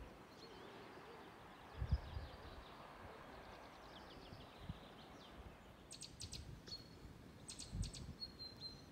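Small birds calling faintly: runs of short, high chirps, coming thicker in the second half. There is a low thump about two seconds in and another near the end.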